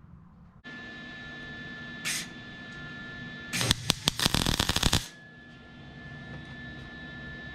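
Welder tack-welding a steel patch panel onto a VW Beetle fender: a short burst of arc sizzle about two seconds in, then about a second and a half of crackling arc full of rapid pops. A steady hum with a faint high tone runs underneath from just under a second in.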